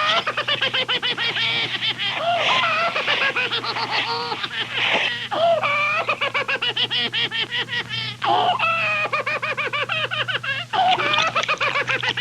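Overlapping high-pitched cackling laughter, rapid pulsing cackles that rise and fall in pitch, over a steady low hum.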